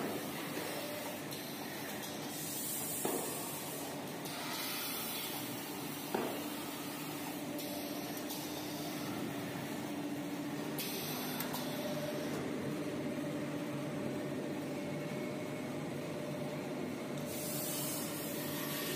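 XY-AI-500 automatic maxi roll paper band saw cutting machine running: a steady machine hum with a low steady tone and a constant hiss, brighter bursts of hiss now and then, and two sharp knocks in the first few seconds.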